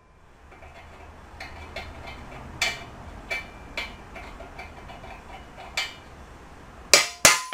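Hammer striking a steel punch to mark a jackshaft's pillow-block bearing housing: a few light taps, then two hard blows with a metallic ring near the end.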